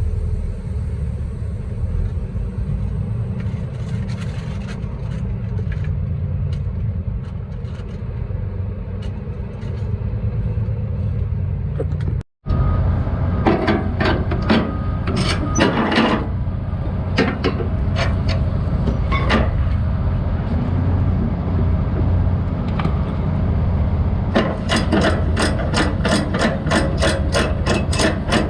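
Log truck's diesel engine idling with a steady low rumble, joined in the second half by scattered metal clanks and, near the end, a quick run of ratchet clicks, typical of load-strap winches being worked to unstrap the load.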